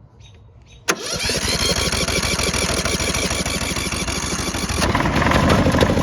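Riding lawnmower's small engine starting up about a second in and then running loudly, with a change in its sound about five seconds in.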